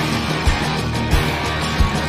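Background music with a steady beat, about one and a half beats a second.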